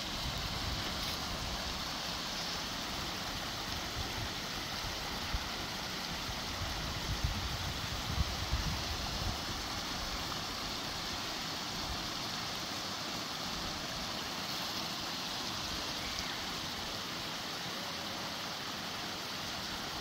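Small woodland stream trickling and splashing over stones and fallen branches: a steady, even rush of flowing water.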